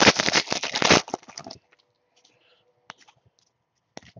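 Crinkly plastic wrapper of a Panini Totally Certified basketball card pack being torn open and crumpled, a dense crackle that stops about a second and a half in. Near the end come two single clicks.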